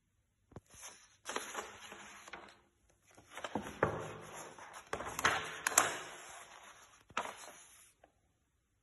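Sheets of watercolour paper rustling as the pages of a loose-leaf book are turned by hand, with several sharp crackles of paper; the rustling stops about eight seconds in.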